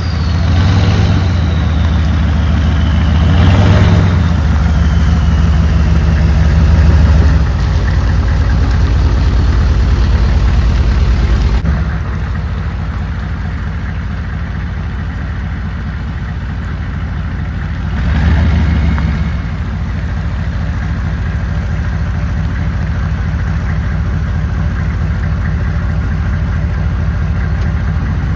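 Vehicle engine running steadily, low and loud, with a few brief swells in level and a drop about twelve seconds in.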